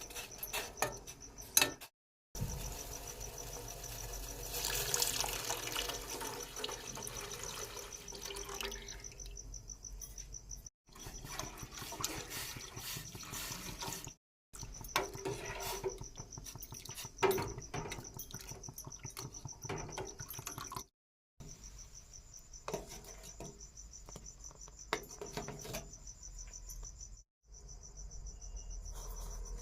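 A cricket chirping steadily in a fast, even trill, with scattered clicks and knocks of kitchen utensils. For several seconds early on there is a rush of pouring or running water.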